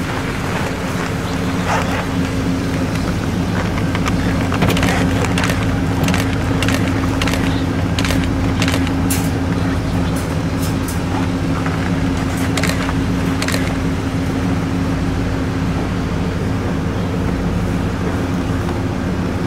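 A vehicle's engine running steadily, a constant low hum with a steady drone, with scattered sharp clicks and rattles between about four and fourteen seconds in.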